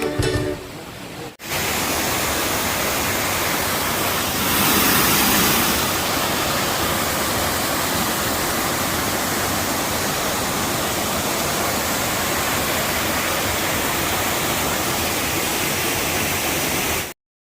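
Waterfall rushing: a steady wash of falling water that swells briefly about five seconds in, then cuts off abruptly near the end. A bit of ukulele music ends just before the water sound begins.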